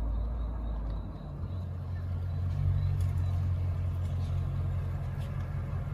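Porsche 928S V8 engine running steadily, a low engine note with a slight rise in the middle.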